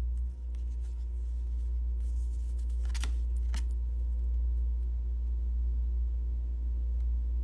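A steady low hum, with two light clicks of a paper card being handled about three seconds in.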